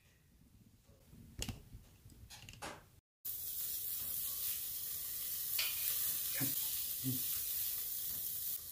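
Meat sizzling on a grill over charcoal in a brass brazier: a steady hiss that starts suddenly about three seconds in, after a few light knocks.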